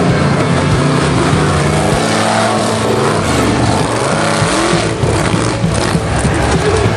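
Off-road 4x4 truck engine revving hard, its pitch rising and falling several times between about two and four seconds in.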